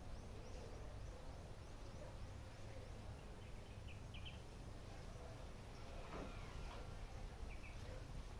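Faint outdoor background: a low steady rumble with a few brief, faint bird chirps, and a single soft knock about six seconds in.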